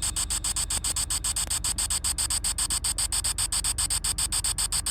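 Spirit box sweeping: hissing radio static chopped into a rapid, even pulse of about ten beats a second.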